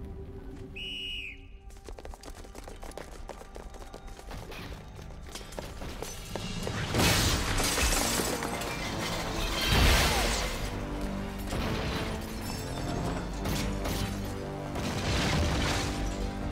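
Dramatic film score music, joined from about seven seconds in by glass shattering and crashes, the loudest about seven and ten seconds in.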